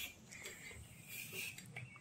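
Faint scraping and a few small clicks of a kitchen knife cutting a peeled raw potato into pieces.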